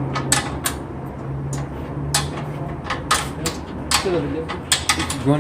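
Hand tools clinking and knocking against metal at uneven intervals while the stock exhaust is being unbolted from a 70cc motorcycle, over a steady low hum.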